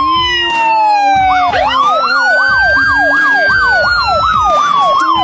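Emergency-vehicle siren. A slow wail falls in pitch, then about a second and a half in a fast up-and-down yelp starts over it and runs on.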